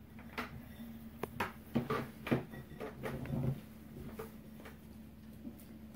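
Hands squeezing and kneading homemade gelatin slime in a glass bowl: a string of short sticky squelches and clicks through the first three seconds or so, then quieter handling, over a low steady hum.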